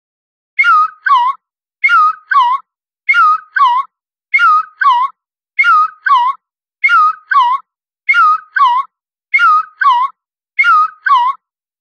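A short two-note whistle-like call, the second note dipping and rising, repeated in an exact loop about every second and a quarter, starting about half a second in.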